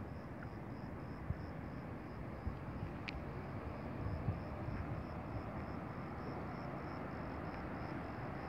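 Steady outdoor rumble and hiss, with a faint high chirp repeating about two or three times a second throughout.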